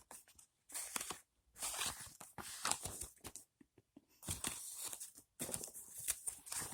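Faint rustling and crinkling of paper leaflets being handled, in short scattered bursts with quiet gaps between.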